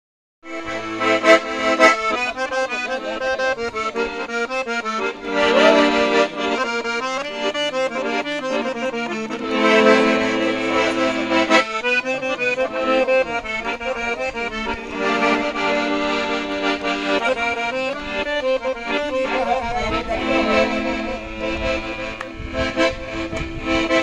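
Accordion playing an Avar folk tune: a melody over bass notes and chords, starting about half a second in.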